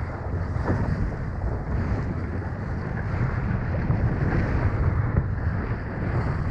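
Wind buffeting the microphone over water rushing and splashing along the hull of a sailing dinghy moving fast under sail.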